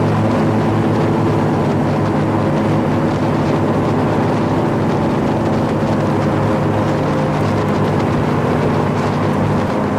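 Airboat engine and propeller running steadily under way, a loud, even drone.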